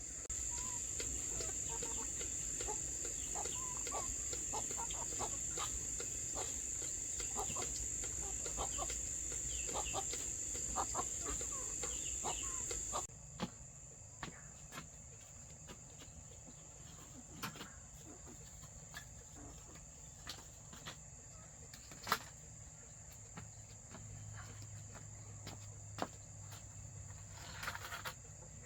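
Steady high-pitched chirring of insects, with scattered faint clicks and short calls; the level drops suddenly about halfway through, and a single sharp knock comes about two-thirds of the way in.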